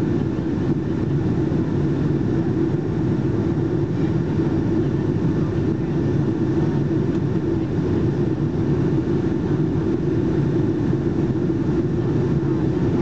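Steady cabin drone of a Boeing 757-232 airliner in flight, heard from a window seat behind the wing: turbofan engine hum and rushing airflow, with a constant low-pitched hum running through it.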